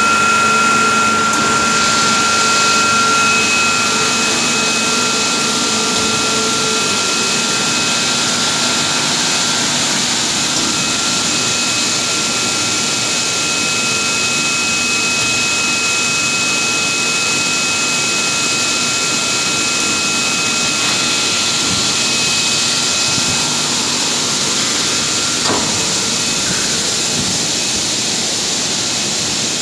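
Industrial heavy-component parts-washing machine running, a steady loud rushing hiss of its wash spray and pump. A steady high whine sits over it, strongest in the first few seconds.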